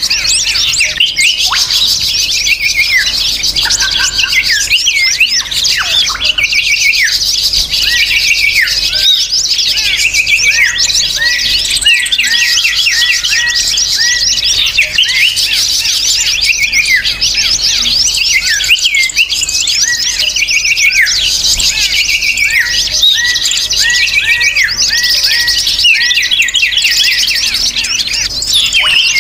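Dense chorus of many small birds chirping and twittering over one another without a break: a bird-lure recording of noisy small birds, used to call wild birds in.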